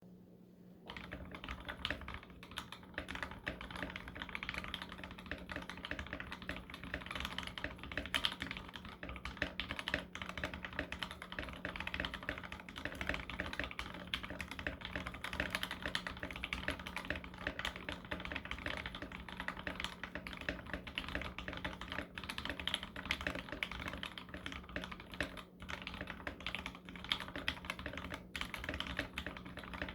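Continuous, rapid typing on a custom 60% mechanical keyboard: Mauve switches, lubed and filmed, on a brass plate in a frosted acrylic case, under MT3 keycaps. It starts about a second in, over a faint steady low hum.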